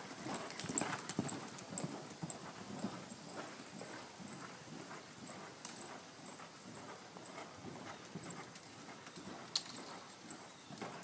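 Hoofbeats of a ridden sorrel stallion on arena dirt: a quick run of soft thuds, loudest in the first few seconds and fainter as the horse moves off across the arena. A single sharp click comes near the end.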